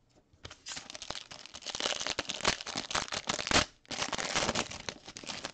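Foil wrapper of a 2022 Panini Prizm World Cup trading card pack being torn open and crinkled by hand: a dense crackling that starts about half a second in, breaks off briefly past the three-second mark, then resumes.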